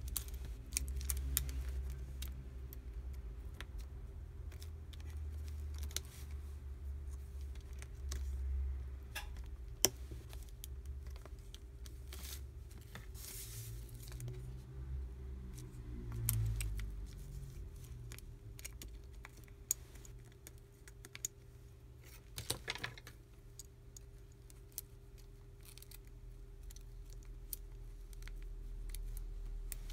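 Small scattered clicks, taps and scrapes of fingers and steel tweezers handling the plastic midframe, parts and circuit board of a Samsung Galaxy S4 being taken apart, over a low steady hum.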